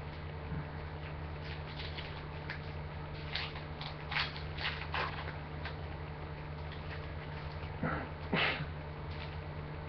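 Upper Deck basketball trading cards being handled: a scattering of brief soft ticks and rustles as cards are flipped through and set down on the desk, the loudest two near the end. A steady low electrical hum runs underneath.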